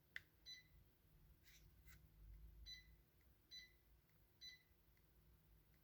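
Faint, short electronic beeps from a Sapfir 60-inch electric fireplace insert, four of them spread over a few seconds, each acknowledging a remote-control command as the lighting and flame settings are changed. A few faint clicks come between them.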